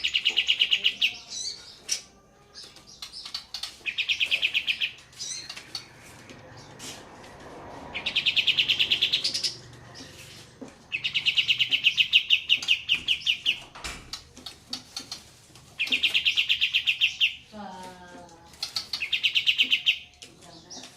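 Olive-winged bulbul (kapas tembak) singing its fast rolling trill ('ngeroll') in six bouts of one to three seconds each. The bouts come over a faint background of trickling water.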